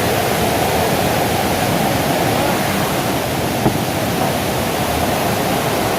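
Waterfall pouring close by: a steady, loud rush of falling water, with one brief knock a little before four seconds in.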